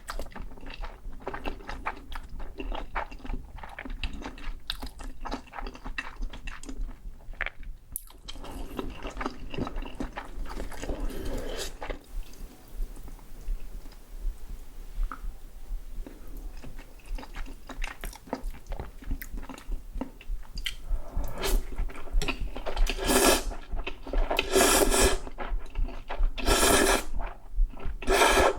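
Close-miked person eating: wet chewing with rapid mouth clicks, then a run of loud, sharp crunching bites in the last third, typical of biting into fried corn dog batter.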